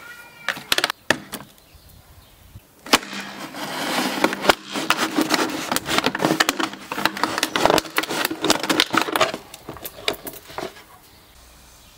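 Knife slicing open a large thin plastic water bottle, the plastic crackling and crinkling in a dense run of sharp clicks as it is cut and pulled apart. A few single clicks come first, and the crackling dies away shortly before the end.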